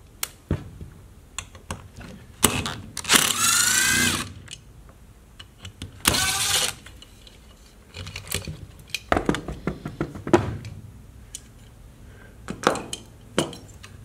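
Cordless impact driver backing out the muffler bolts on a small two-stroke engine in three short bursts of motor whine. Metal parts clink and click as the muffler and bolts are lifted off near the end.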